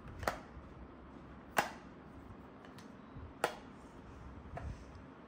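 Four light, sharp clicks spaced a second or more apart, with a couple of fainter ticks between them: small hard objects being handled or set down, against faint room tone.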